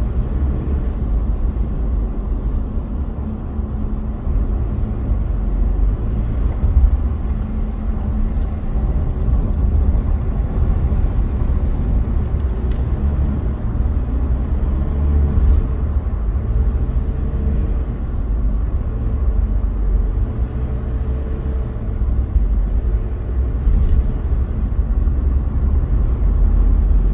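Steady low rumble of road and engine noise from inside a car cruising on an expressway at about 80 km/h.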